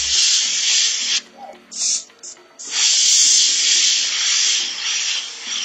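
Iwata airbrush spraying in bursts of hiss as its trigger is pulled: a spray ending about a second in, two short puffs, then a longer spray of about three seconds that tapers off. It is laying down a thinned blue glaze, built up in several coats.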